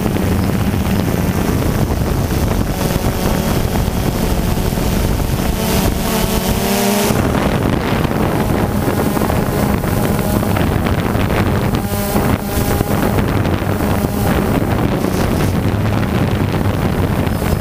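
Quadcopter drone's electric motors and propellers running steadily, heard from the drone's own onboard camera, with wind rushing over the microphone. The motor pitch shifts briefly about six seconds in and again near twelve seconds as the drone manoeuvres.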